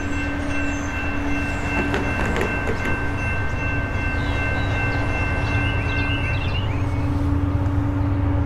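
Distant freight train approaching, led by a Norfolk Southern GE AC44C6M diesel-electric locomotive: a steady low rumble that slowly grows louder, with a steady higher tone over it. A thin high tone also rings over it and stops about six and a half seconds in.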